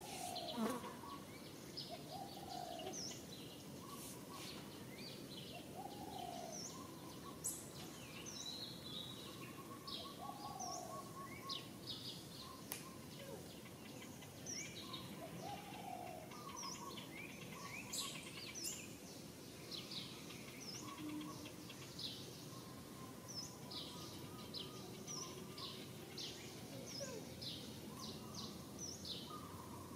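Outdoor ambience of small birds chirping: many short high chirps throughout, with a lower rising call every few seconds, over a steady low background noise.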